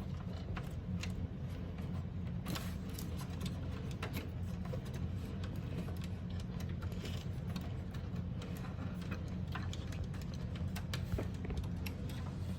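Scattered light clicks and taps from computer parts and cables being handled and routed inside a desktop PC case, over a steady low hum.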